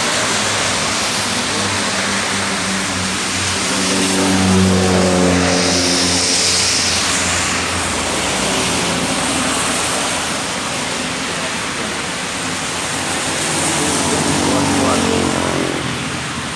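Steady rushing hiss of heavy rain, with a motor vehicle engine humming louder and fading away twice.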